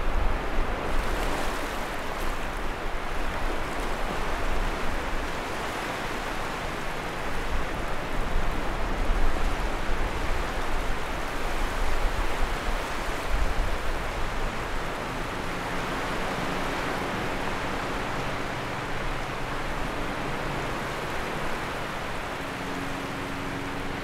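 Sea waves washing onto the shore: a steady hiss of surf that swells and eases every few seconds. A faint, steady low hum comes in about fifteen seconds in and runs under the surf.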